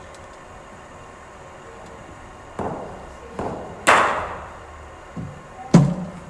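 A run of sharp knocks and thuds starting about two and a half seconds in, from a cricket ball fired by a bowling machine, pitching and being struck with a bat. The sharpest, loudest crack comes near four seconds in, and a heavy thud follows near the end.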